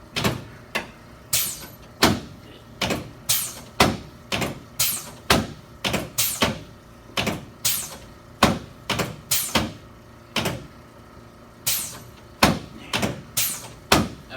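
Chiropractic adjusting instrument firing a rapid run of sharp clicks, roughly two a second, with a short pause about eleven seconds in.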